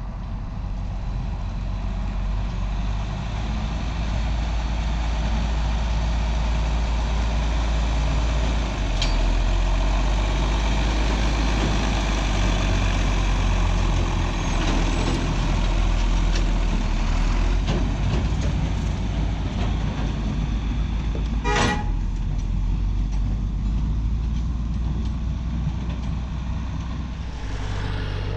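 Heavy vehicle engine running steadily with a deep drone, and one brief horn toot about three-quarters of the way through.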